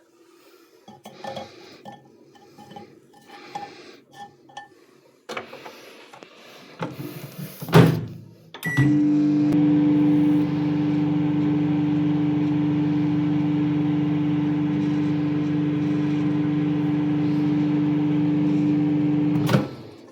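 Microwave oven being loaded and started: faint handling clatter, a sharp click as the door shuts, a short beep, then the oven running with a steady hum for about ten seconds. It stops with a click near the end.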